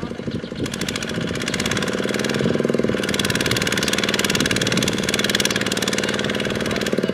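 Kubota RT155 walking tractor's single-cylinder diesel engine revving up over the first two seconds, then running hard with a rapid, even beat while its wheels churn through deep mud under a heavy load.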